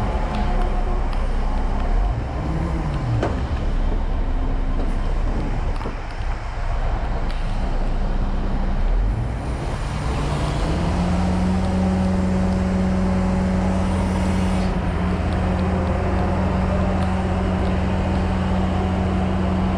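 Large diesel truck engine running, rising and falling briefly about two seconds in, then revving up about ten seconds in and holding at raised revs, as when driving a wrecker's hydraulics or winch.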